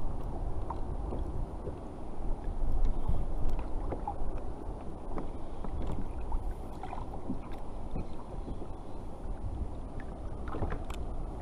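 Choppy sea water lapping and sloshing against a sit-on-top kayak's hull, with wind on the microphone and scattered small clicks and knocks from handling the tackle.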